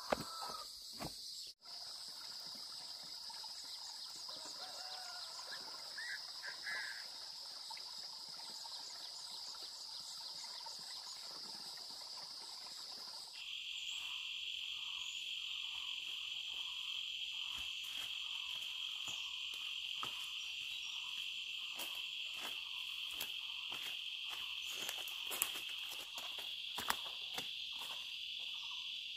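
Insects chirring in one steady, high, even drone. About halfway through it switches abruptly to a lower-pitched insect drone. Scattered sharp clicks and taps sound over the second half.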